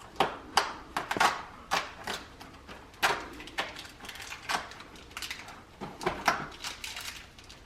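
A cardboard advent calendar being opened and a plastic-wrapped dog treat taken out: irregular crackling, snapping and crinkling of cardboard and plastic, in quick uneven bursts.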